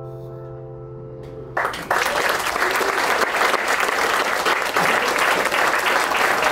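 The song's last acoustic guitar chord rings out and fades, then the audience breaks into applause about a second and a half in, which carries on steadily.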